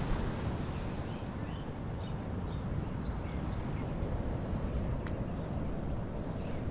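Steady low rushing outdoor ambient noise, with a few faint short high chirps scattered through it.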